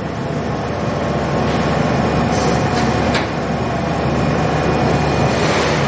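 Motorized smoked salmon slicing machine running steadily, with a couple of sharp clicks about three seconds in.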